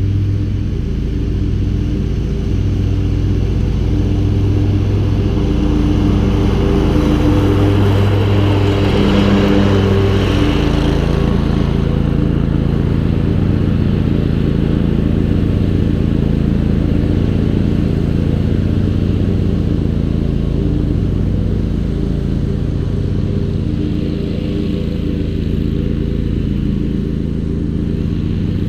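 2005 Dixie Chopper Silver Eagle zero-turn mower's 27 horsepower Generac engine running steadily under mowing load. A brief swell of hiss rises and fades about eight to eleven seconds in.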